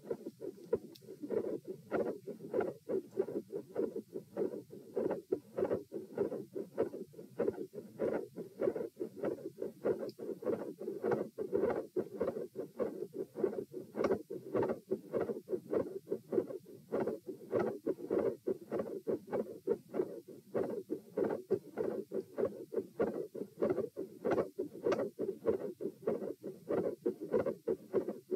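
Heart sounds heard through a stethoscope at the tricuspid (T) auscultation area: a steady, regular lub-dub heartbeat.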